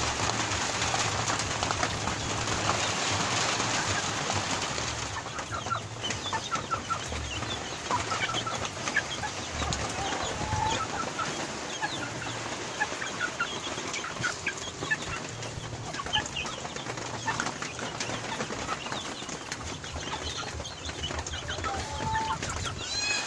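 Chickens clucking and giving many short, high calls, over the steady hiss of rain. The rain is heaviest in the first few seconds.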